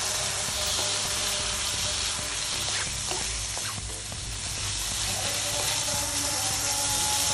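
Rice vermicelli and prawns sizzling in hot oil in a pan while being stir-fried and tossed with a wooden spatula: a steady sizzle with a few spatula scrapes against the pan around the middle.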